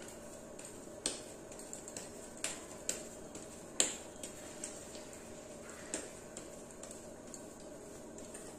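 A scatter of light clicks and taps from hands handling dough and utensils at a kitchen counter, the sharpest a little under four seconds in, over a steady low hum.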